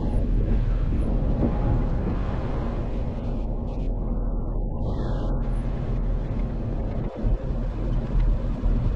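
An off-road vehicle's engine running steadily under way, a dense low rumble that dips briefly and surges again near the end.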